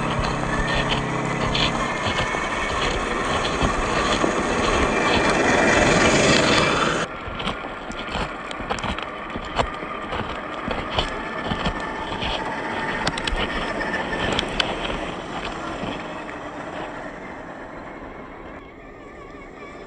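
Scale RC crawler trucks with brushed electric motors driving over loose gravel, their motors and gearboxes whining over the crunch of tyres on stones. The sound is loud for about the first seven seconds, then drops suddenly to a quieter crunch with scattered sharp clicks of stones.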